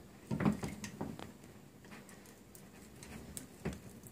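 A waiter's-friend corkscrew clicking lightly as its hinged lever is set on the bottle's lip and pulled to lever the cork up through the wax seal. The clicks are few and scattered.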